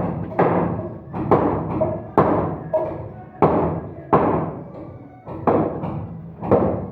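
Heavy knocking strikes, about one a second and unevenly spaced, each sharp at the start and ringing briefly as it fades, typical of a hammer striking wood.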